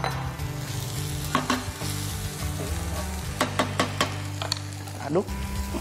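Cold cooked rice sizzling as it is stir-fried in a hot frying pan, with a wooden spatula knocking against the pan several times, including a quick run of knocks a little past halfway.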